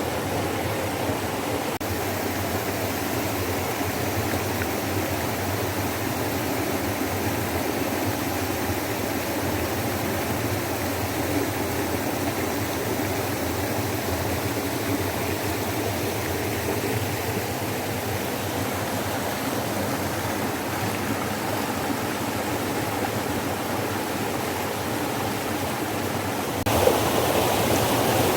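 Mountain stream water flowing with a steady rush. About two seconds before the end it becomes louder.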